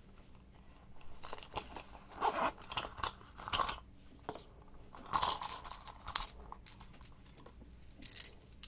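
Hands handling and opening a small green zippered plastic case, giving several short bursts of crinkly rustling and scraping about one to four seconds in, again around five to six seconds in, and briefly near the end.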